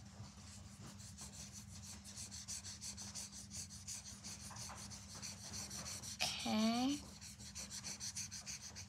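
Felt-tip marker scribbling back and forth on paper in quick, even strokes as a shape is coloured in.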